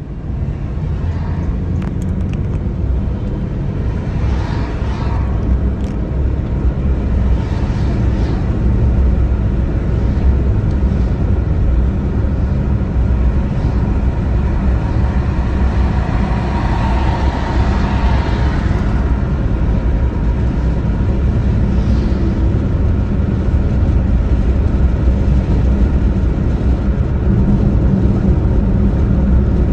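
Steady road noise inside a car cruising at highway speed: a deep tyre and engine rumble with a hiss of wind and road over it, swelling briefly a few times, most strongly a little past the middle.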